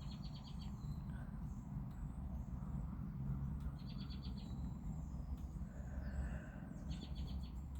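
A small bird's short, rapid, high trill, given three times about three and a half seconds apart, over a steady low rumble.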